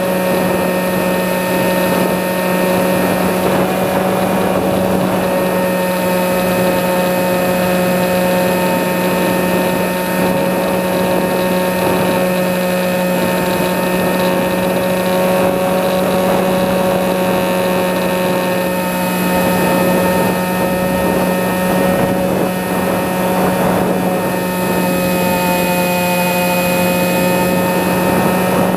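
Electric motor and propeller of a Sky Eye FPV model glider running at a steady pitch, with wind noise over the microphone.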